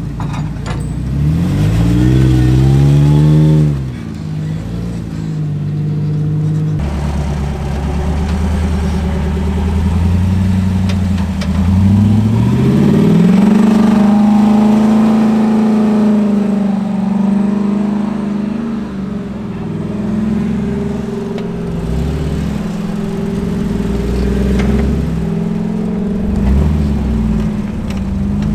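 Off-road Jeep engine revving: the pitch climbs quickly about two seconds in and drops back. It rises again around twelve seconds and holds high for several seconds before easing off.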